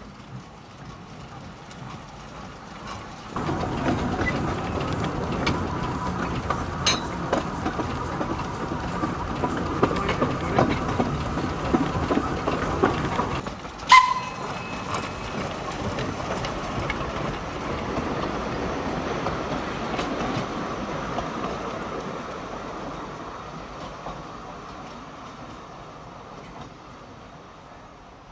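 Narrow-gauge train running past, its wheels clicking over the rail joints. The sound comes in suddenly about three seconds in and stays loud for about ten seconds. It drops back, there is one sharp clank, and then it fades slowly away.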